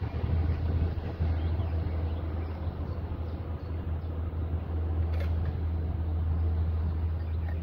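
Stadler GTW-D diesel-electric train pulling away: a steady low engine rumble under a noisy hiss, with a short click about five seconds in.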